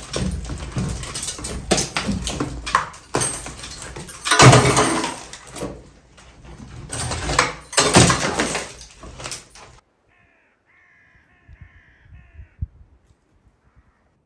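Rotten wood being scraped and pried off an old timber ceiling beam with a hand tool, in loud, rough, irregular strokes. It cuts off suddenly about ten seconds in, and a few faint crow caws follow.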